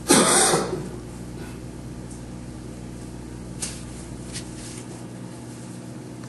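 A short, loud burst of noise right at the start, then a steady low electrical hum with a couple of faint clicks about three and a half and four and a half seconds in.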